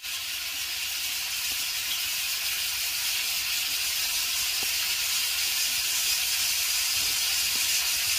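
A loud, steady, even hiss with a faint low rumble beneath it, cutting in suddenly.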